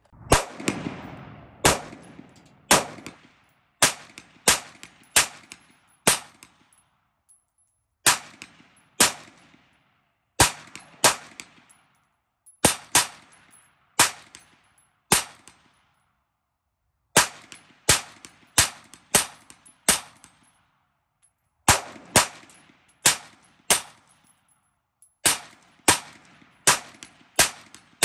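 Semi-automatic AR-15 rifle fire: strings of four to six shots about half a second apart, with pauses of a second or two between strings, each shot followed by a short ringing echo.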